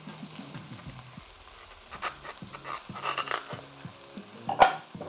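Crisp cracks and snaps of a raw fennel bulb being peeled apart by hand. The loudest is one sharp snap about four and a half seconds in. Soft background music runs underneath.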